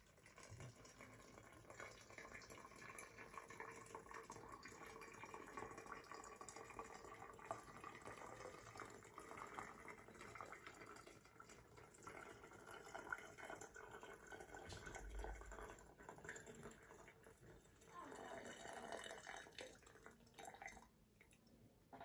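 Freshly boiled water poured in a thin stream from an electric kettle's spout into a narrow-necked bag: a faint trickle that stops about a second before the end.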